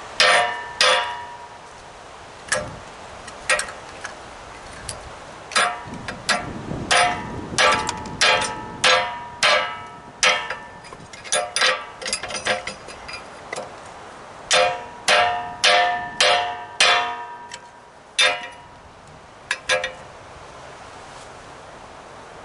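A hammer striking metal, a long series of irregular ringing clangs, often in quick runs of several blows, stopping about 20 seconds in.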